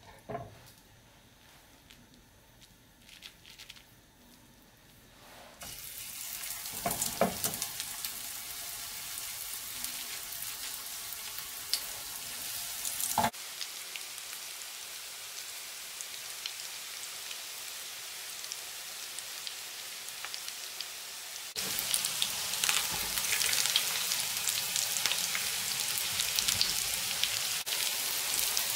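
Cabbage patties frying in hot oil in a frying pan: a steady sizzle with crackles, starting about six seconds in after a quiet start, and louder in the last third.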